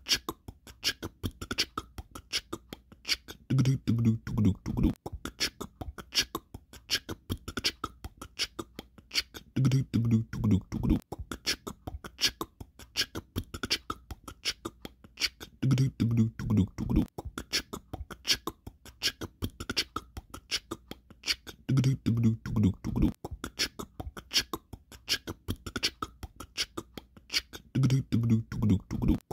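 Outro music: a looping beatbox-style beat of fast clicks, with a lower vocal phrase coming back about every six seconds.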